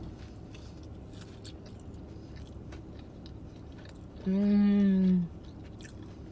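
Close-miked chewing of fried food, an alcapurria fritter, with many short crunches and clicks of the mouth. About four seconds in, a steady hummed "mmm" of enjoyment lasts about a second and is the loudest sound.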